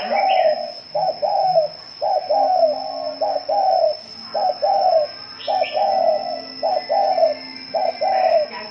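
Spotted dove giving its 'gù' coo: a rapid series of short, low coo notes in uneven groups. A thin, steady high tone runs throughout.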